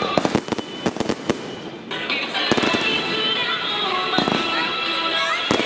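Handheld tezutsu fireworks giving a quick run of sharp crackling pops for about the first second and a half, then a steady hiss under background music.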